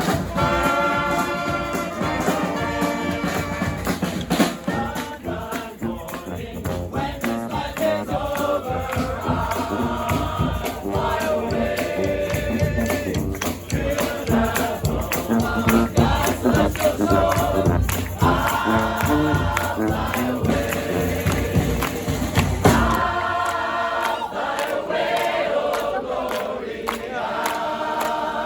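New Orleans-style street brass band playing, with several voices singing together over the horns. About three-quarters of the way through, the bass and drums drop out, leaving the voices and the higher parts.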